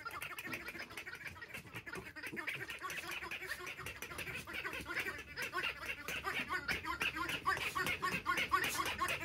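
Jack Russell terrier tugging and biting at a small baby toy in play: a fast, steady run of short nasal sounds, getting louder in the second half.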